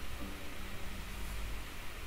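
Steady hiss and low rumble of background room tone, with no distinct event.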